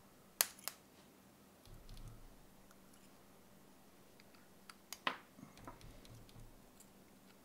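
Small side cutters snipping into the metal casing at the top of a 9-volt alkaline battery to cut it off: two sharp snaps within the first second, then a louder snap about five seconds in, with faint handling sounds between.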